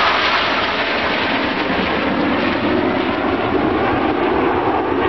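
Steady jet noise from CF-18 Hornet fighters that have just passed low, mixed with the rolling rumble of a pyrotechnic fire-wall explosion line, with no separate sharp bangs.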